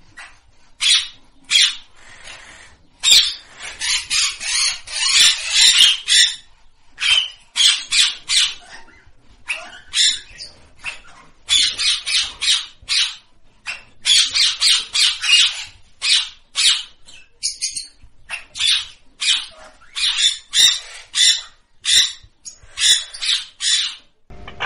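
A flock of parakeets calling: many short, sharp screeches in quick runs, often overlapping, with a few brief pauses.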